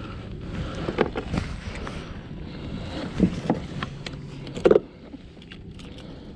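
Handling bumps and knocks against a plastic kayak hull, five or so, the loudest about four and a half seconds in, over a steady wash of water and wind noise.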